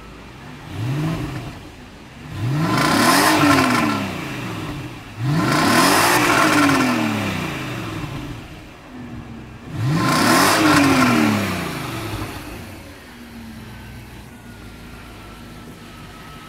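Audi S6 Avant's 4.2-litre V8 revved from idle through its exhaust: a short blip about a second in, then three long revs that climb in pitch and fall back, before it settles to a steady idle.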